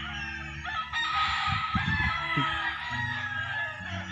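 Roosters crowing in the background, over a low steady hum that steps between pitches every second or so.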